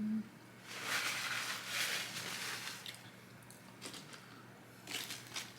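Close-up crunching and crinkling from eating fast food and handling its paper wrappers, for about two seconds, followed by a few short clicks and rustles.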